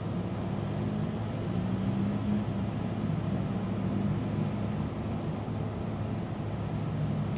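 Desktop PC running during boot, its fans and power supply giving a steady low hum over an even background of noise.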